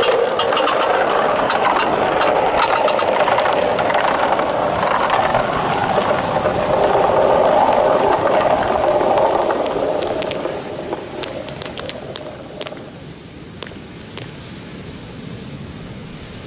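Many small balls rolling in a stream down plastic rain-gutter chutes, a steady rolling rumble that fades out about ten seconds in, followed by a few scattered clicks as the last balls knock together and come to rest.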